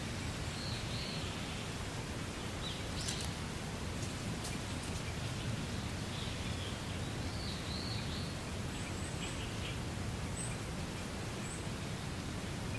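Wind blowing through a reed bed: a steady rustling hiss. Faint bird calls come through a few times.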